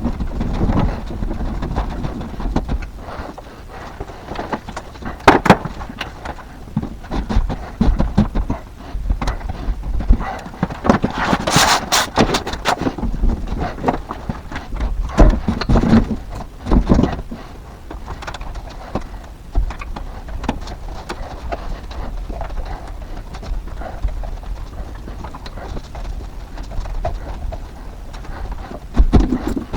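Scattered knocks, clicks and rustling from hands-on work fitting electrical conduit and Romex cable, with a denser stretch of rustling and clatter about twelve seconds in and a few heavier thumps.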